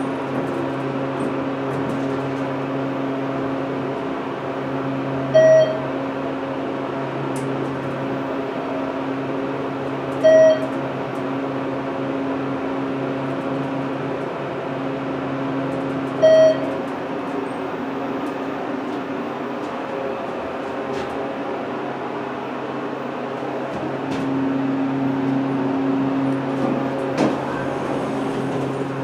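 ThyssenKrupp hydraulic elevator car descending with a steady low hum, and three short electronic beeps about five seconds apart as it passes the floors. Near the end the hum grows louder and there is a click.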